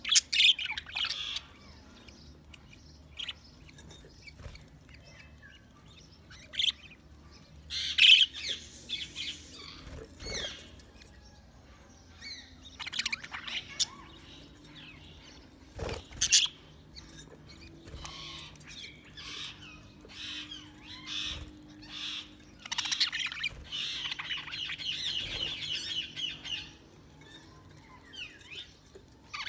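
Budgerigars chirping in short, scattered calls, with a few sharper, louder calls and a longer run of quick warbling notes late on.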